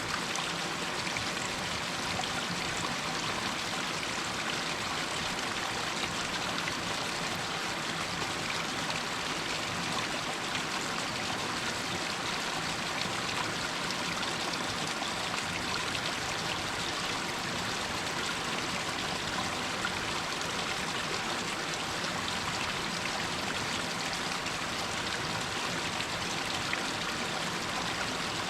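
Water running and splashing steadily down over rocks in a small hillside stream, a constant even rush with some trickling.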